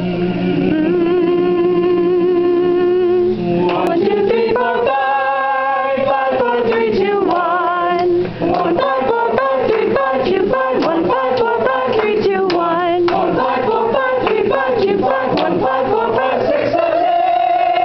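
A group of young voices singing unaccompanied as a vocal warm-up: a long held note with vibrato, then sliding pitches, then rhythmic singing with hand claps from about halfway through.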